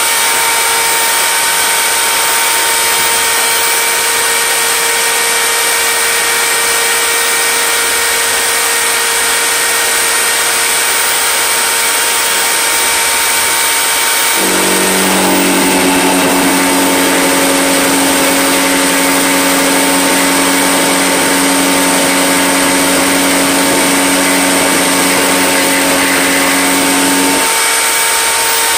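Table-mounted router running steadily with a high whine. From about halfway in, the whine drops to a lower pitch for some thirteen seconds as the motor is loaded by the wood being fed through, then comes back up to its free-running pitch near the end.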